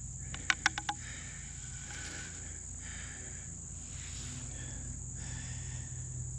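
Steady high-pitched chorus of insects such as crickets. About half a second in come four quick sharp clicks as the wooden hand-drill spindle and fireboard are handled.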